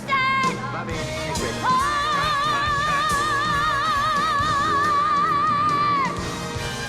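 A woman's voice singing a show tune over instrumental accompaniment. After a short phrase she holds one long high note with wide vibrato, which stops about six seconds in.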